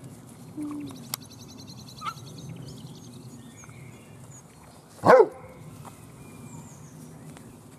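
A dog gives a single short, sharp bark about five seconds in, with small scuffling noises around it.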